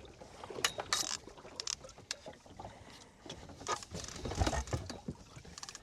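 Water slapping and splashing against a small boat's hull, with scattered irregular knocks and clicks.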